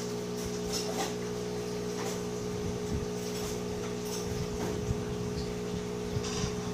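Hot-air rework station running: a steady hum and airflow with a few light clicks and taps.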